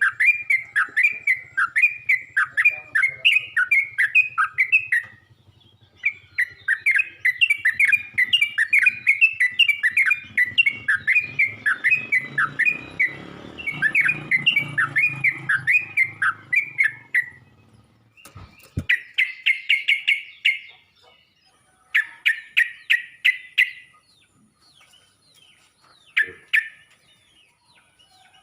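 Yellow-vented bulbul (trucuk) calling: long runs of quick, repeated chattering notes with a short pause about five seconds in, then shorter bursts separated by quiet gaps in the last third.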